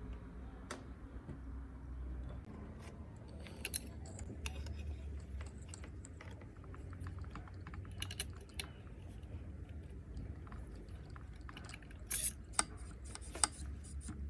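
Scattered light clicks and taps, some in quick clusters and a few louder ones near the end, over a steady low hum.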